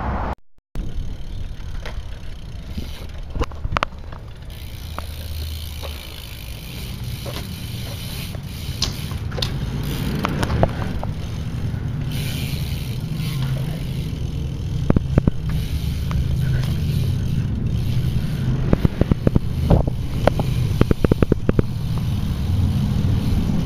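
BMX bike being ridden: a steady low rumble of tyres rolling on hard ground, with scattered sharp clicks and knocks from the bike and a quick run of clicks near the end.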